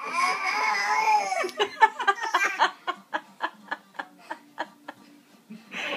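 A 5-month-old baby vocalising: a drawn-out, high-pitched cry-like sound, then a run of short laugh-like pulses, about five a second, that fade out.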